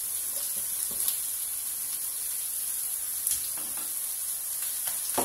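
Chicken sizzling steadily in a frying pan on a gas burner, with a few light knocks from kitchen items being handled.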